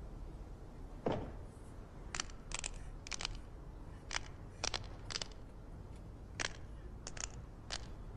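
A dozen or so short, sharp clicks at uneven intervals, roughly one every half second, over a faint background hum.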